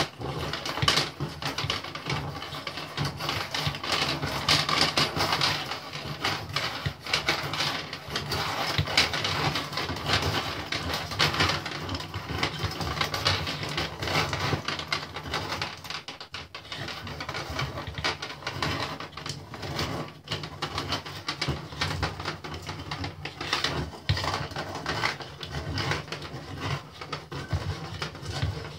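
Flat steel mainspring from a Cecilian two-spring phonograph motor being wound by hand into its barrel: continuous scraping and rapid clicking as the steel coils slide over each other and against the barrel.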